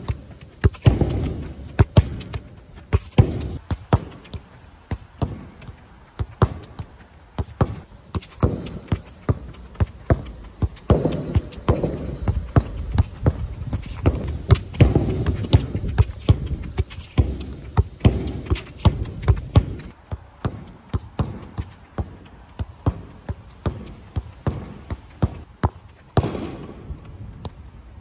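Football passing drill: a steady run of sharp thuds as a boot strikes the ball and the ball rebounds off wooden kickboards and is trapped, about one to two a second.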